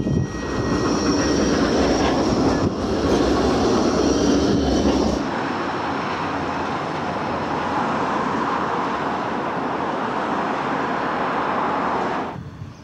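Bombardier Flexity 2 trams running along street track, wheels rolling on the rails with a faint high whine. The sound changes abruptly about five seconds in, to a second tram pass, and drops away near the end.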